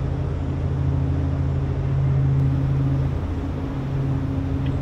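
Diesel engines of the Great Lakes freighter H. Lee White, a pair of EMD diesels, running with a steady low hum and rumble as the ship passes close by.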